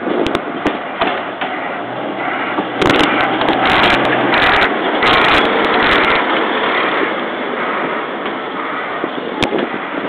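Wind buffeting a phone's microphone, loudest in gusts a few seconds in, with scattered sharp clicks from handling the phone.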